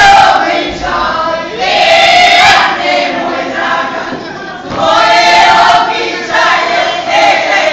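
A group of dancers singing a Šokac kolo song together, in loud sung phrases with short dips between them.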